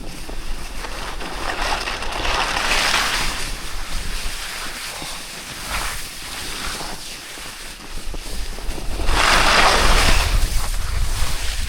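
Edges scraping across snow in turns, two long swishes about two and nine seconds in, over wind rumbling on the microphone.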